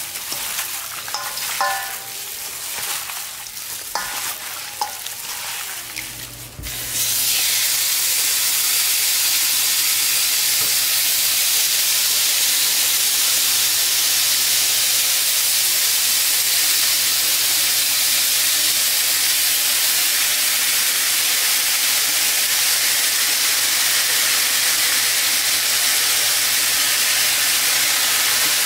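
Gloved hands squishing and mixing marinated beef short ribs in a bowl, a wet, irregular squelching. About seven seconds in this gives way to a loud, steady sizzle of marinated beef short ribs frying in a pan.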